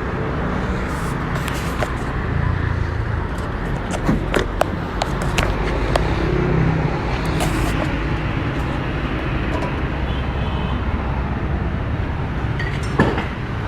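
Petrol engine of a walk-behind concrete saw running steadily, with scattered sharp clicks and knocks over the steady hum.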